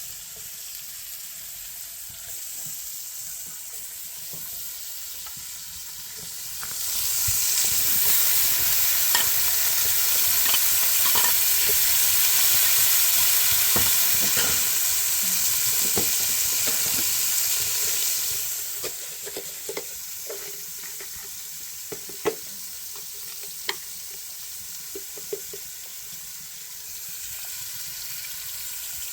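Food sizzling in a hot pan, with scattered clicks of a utensil stirring it. From about seven seconds in, the sizzle grows much louder and brighter for about twelve seconds, then settles back.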